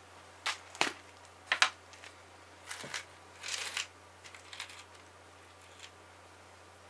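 A plastic snack tub being handled and opened: a string of sharp clicks and knocks from the container, with the hard wasabi rice crackers rattling briefly inside it.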